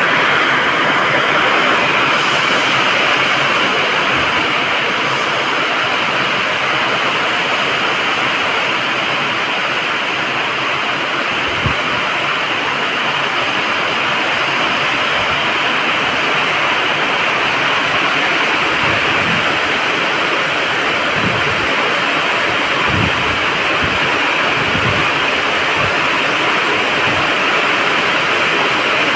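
Heavy rain falling steadily: a dense, even hiss that does not let up. A few soft low thumps come in the second half.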